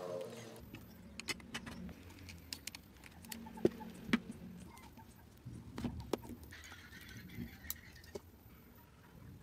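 Scattered small clicks and light taps of tiny screws, a screwdriver and plastic DSLR body and battery-grip parts being handled and set down, with a short scraping rustle about seven seconds in.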